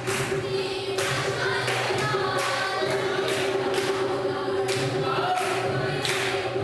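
A group of voices singing a folk song together, kept in time by sharp, regular beats.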